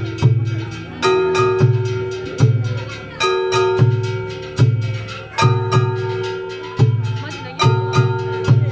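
A festival float's hayashi band plays percussion in a steady rhythm. Deep drum beats fall about every 0.8 s, each sounding together with ringing metallic, bell-like strikes.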